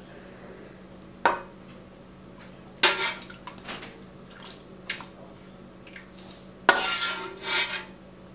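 Metal ladle clanking and scraping against the inside of a large stainless steel stockpot as chicken and dumplings are dished out. There are a few sharp clanks, the loudest about three seconds in and about seven seconds in, each followed by a brief scrape.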